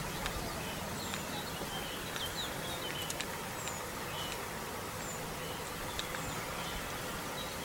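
Small birds chirping in short, high, repeated calls over a steady outdoor background hum.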